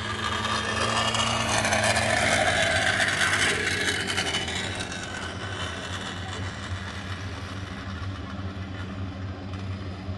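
A mechanical whir swells over the first couple of seconds and fades away by about five seconds in, over a steady low hum.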